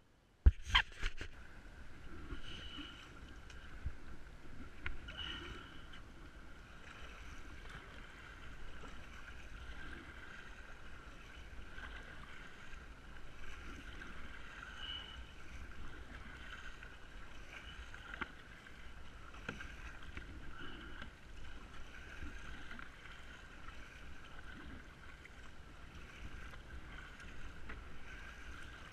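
Kayak paddling on open water: paddle strokes and water splashing and dripping against the hull, with scattered small knocks. It opens with a sharp knock about half a second in.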